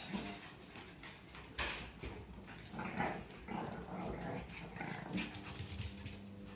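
Two Pekingese dogs play-fighting, giving short growls and whines over and over, with their paws scrabbling on the floor.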